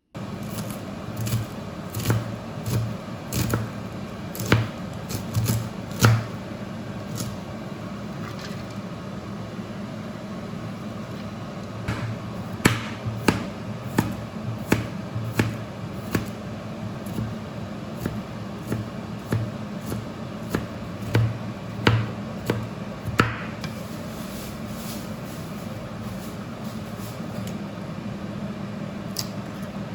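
Knife chopping on a cutting board: knocks about one every half to one second, in two runs with a pause between, over a steady kitchen hum.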